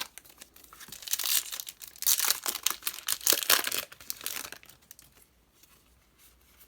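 Foil Yu-Gi-Oh! booster pack wrapper crinkling and tearing, in busy crackly bursts that die away after about four and a half seconds.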